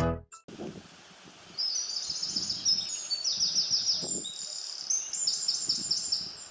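A musical jingle cuts off right at the start. Then a small bird sings in the rural quiet: quick trills of high chirps, repeated over and over with short gaps. A few faint low rustles sound underneath.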